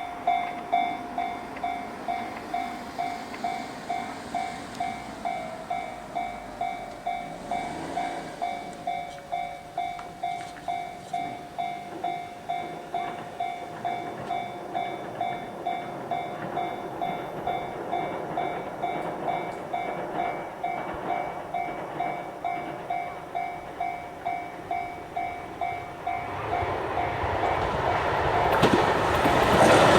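Japanese level-crossing warning bell ringing with its steady, evenly repeated "kan-kan" strike. About four seconds before the end a train comes up to the crossing, its wheel rumble and clickety-clack rising until it is the loudest sound as the train passes.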